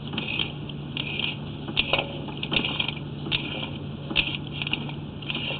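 Sewer inspection camera and its push cable being fed through a drain pipe, giving irregular scraping and clicking under a steady low electrical hum.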